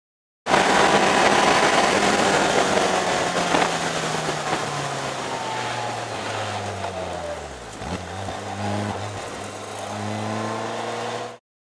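Caterham R300's engine heard onboard at speed over a loud rush of wind and wet-road noise. The revs fall steadily for several seconds, then climb again in the last few seconds as the car accelerates.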